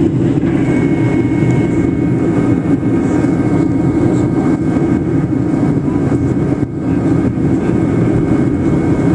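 Steady cabin roar of a Boeing 737-700 in flight on approach, from its CFM56 jet engines and the airflow past the fuselage. It is mostly a deep rumble, with a faint steady high whine that comes in about half a second in.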